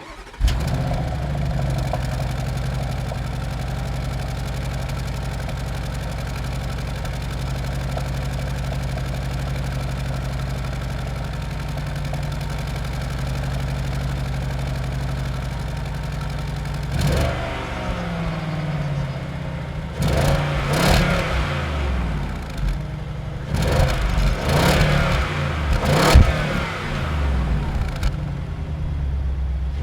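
Porsche Cayenne Turbo coupe's 4.0-litre V8 starting, then holding a steady idle. A little past halfway it is revved in a series of short blips that rise and fall. It is on the standard exhaust in its sportiest setting, which the owner finds disappointing.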